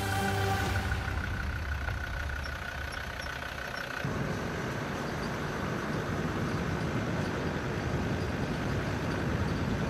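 Safari truck driving along a bush track: a steady rumble of engine and road noise, starting about four seconds in after the tail of some music fades.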